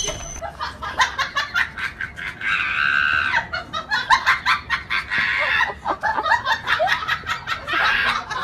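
Shrill, choppy laughter and squealing from a voice, in quick short pulses with a held high squeal about three seconds in.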